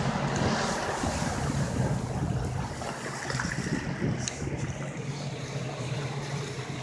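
Motorboat under way: the engine runs at a steady low drone while water rushes and splashes along the hull, with wind buffeting the microphone.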